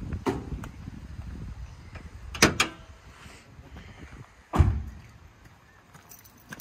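Car door and bonnet-release clunks on a Honda Civic EJ9 as it is opened up to show the engine: a sharp double click about two and a half seconds in, then a heavy thud about two seconds later.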